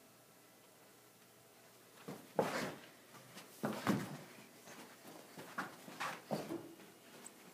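Irregular thumps and scuffs, as of people moving about and treading on the floor, starting about two seconds in after faint room tone.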